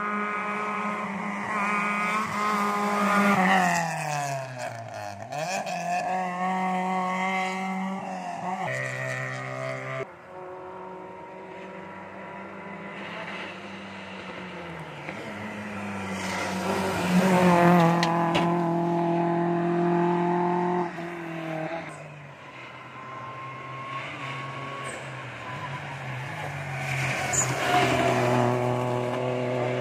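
Rally cars racing past on the road one after another, engines revving hard and changing pitch through the gears. The pitch drops as a car goes by. The loudest passes come about three seconds in, around seventeen seconds in, and near the end.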